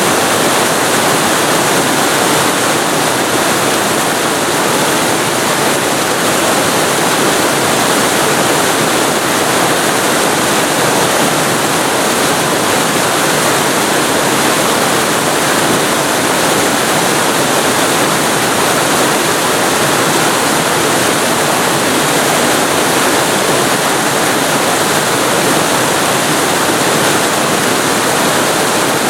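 Waterfall recorded up close: a steady, loud rush of falling water.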